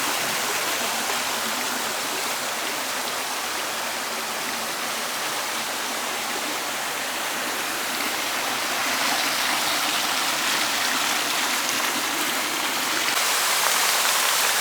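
Rushing creek water: a steady hiss of flowing water that gets a little louder about nine seconds in.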